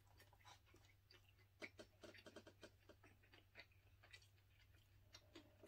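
A person chewing food close to the microphone: faint, irregular wet clicks and smacks from the mouth, over a low steady hum.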